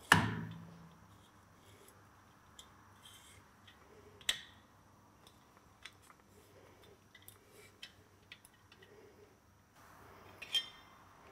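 Steel threading die turned by hand on the stud of a Linkert M35 carburetor, cutting a 5/8"-18 thread: small metal clicks and ticks. A sharp metallic knock at the very start rings out for about a second, and a single sharp click comes about four seconds in.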